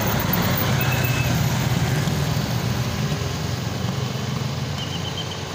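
A heavy bus's diesel engine running close by, its low hum slowly fading. Two short, high whistle-like tones sound about a second in and again near the end.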